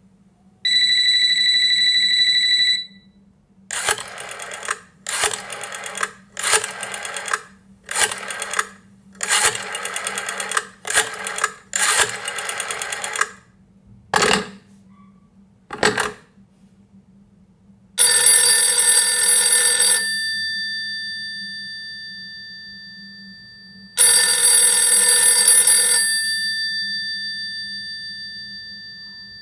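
A series of telephone sounds: a steady two-second tone, then a run of short rattling bursts and two single knocks. Then a telephone bell rings twice, two-second rings six seconds apart, the bell ringing on and fading after each one.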